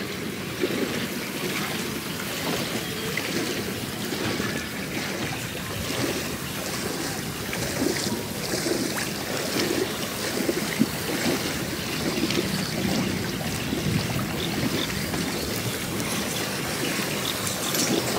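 Continuous irregular sloshing and splashing of shallow water and soft mud as people move through a flooded field.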